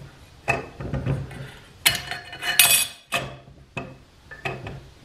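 A Belleville spring being set into a steel automatic-transmission forward clutch drum by hand: a handful of sharp metallic clinks with short ringing, the loudest about two seconds in.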